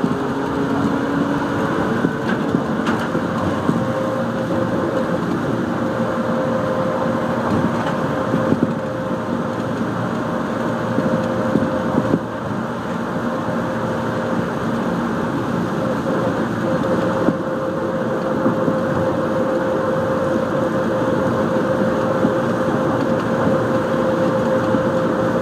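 A Taipei Metro Wenhu line rubber-tyred automated train running on its elevated guideway, heard from inside the car. Under a steady rumble of running noise, a motor whine rises in pitch over the first few seconds as the train gathers speed, then holds a steady pitch while it cruises.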